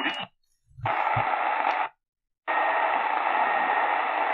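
Sony ICF-SW7600GR portable radio's speaker hissing with static between medium wave stations as it is tuned up the AM band, cutting to silence twice between stretches of noise. Two low thumps come about a second in.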